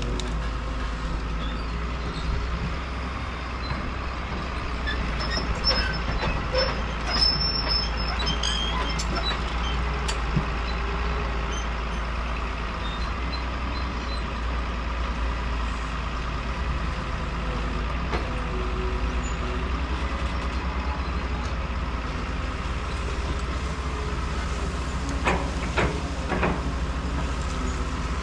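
Caterpillar 320B hydraulic excavator's diesel engine running steadily under working load as the machine swings and digs in dirt. A few sharp knocks come about a quarter of the way in and again near the end.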